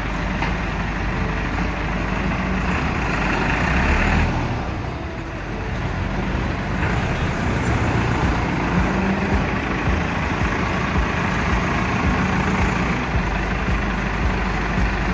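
Massey Ferguson 385 tractor's four-cylinder diesel engine running steadily, louder for a second or two about three seconds in before settling back.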